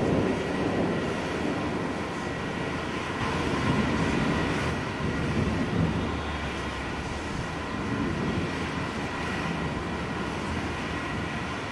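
Distant thunder rumbling in long rolling swells, loudest near the start and again about four to six seconds in.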